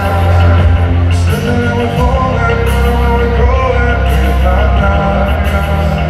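Rock band playing live, with a singer's voice over electric guitars, bass and drums.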